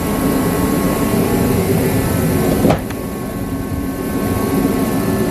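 A steady mechanical drone, like a running motor or engine, with one sharp click about halfway through, after which it is a little quieter.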